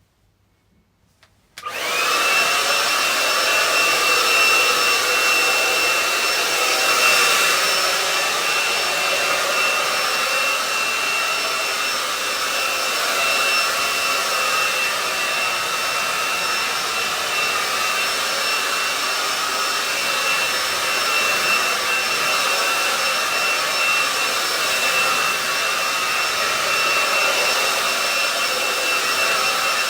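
Hand-held hair dryer switched on about a second and a half in, then running steadily with an even whir and a steady high whine over it.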